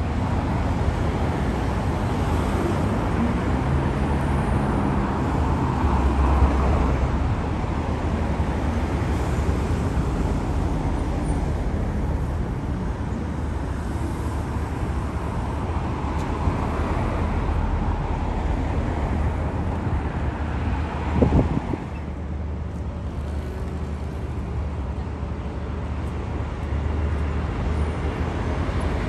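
Steady roar of city road traffic mixed with the low rumble of an Airbus A350-1000 airliner flying over at low altitude on approach to Heathrow. There is a short louder burst about three-quarters of the way through.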